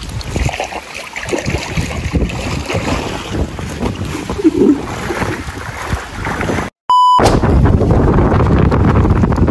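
Water and wind noise on the microphone during a small-boat ride on a river. About seven seconds in the sound drops out briefly with a short electronic beep, then steady wind buffeting on the microphone comes in louder.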